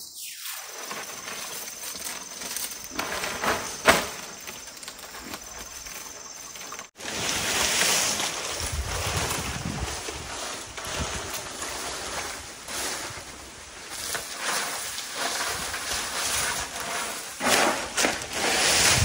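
Dry palm-leaf thatch rustling and crackling as it is handled and walked on along a bamboo roof frame, with scattered light knocks and one sharp knock about four seconds in.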